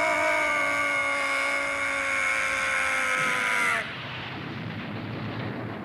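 Animated monster's long, slightly falling scream as energy beams strike it. About four seconds in it cuts off, and a steady rushing blast noise follows.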